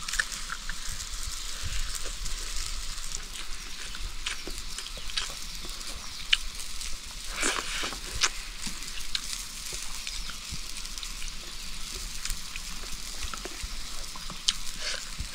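Food sizzling in hot oil in a cooking pot, a steady hiss with scattered crackles and a few louder pops.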